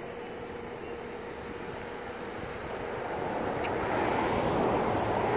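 Road traffic noise: a vehicle passing nearby, a steady whoosh that swells and grows louder through the second half. A couple of faint bird chirps sound over it.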